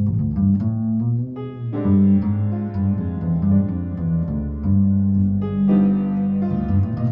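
Piano and plucked double bass playing jazz together. The piano strikes full chords that ring on, about two seconds in and again near six seconds, over the bass's low notes.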